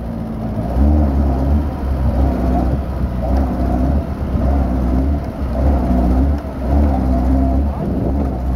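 Off-road vehicle engine revving up and down again and again over a heavy low rumble, the pitch rising and falling about once a second.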